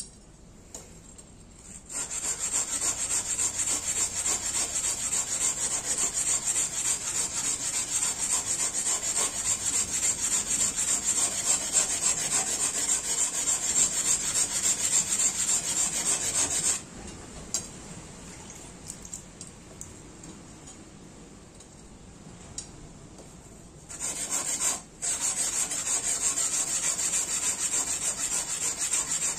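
Steel tanto blade scraping back and forth on a wet whetstone, a steady gritty rasp of quick strokes, as the tip and yokote ridge are ground to shape. The scraping stops about 17 seconds in and starts again about 24 seconds in.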